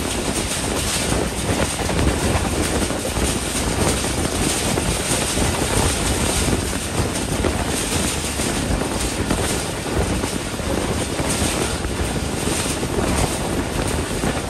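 Steady running noise of a passenger train moving at speed, heard from the side of the coach: wheels rolling on the rails under a constant rush of air over the microphone.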